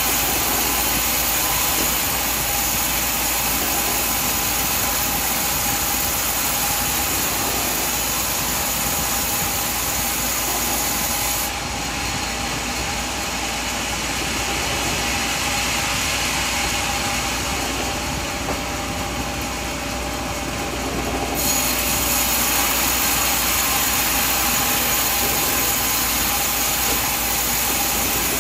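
Band sawmill machinery running steadily with a constant engine hum. About eleven seconds in the sound turns duller and thinner, and it returns to its earlier brightness about ten seconds later.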